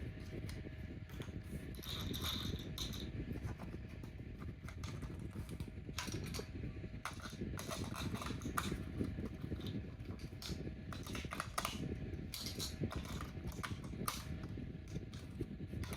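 Battery-powered plastic toy running: a continuous rapid rattle of small gears with scattered sharper clicks over a faint steady motor whine.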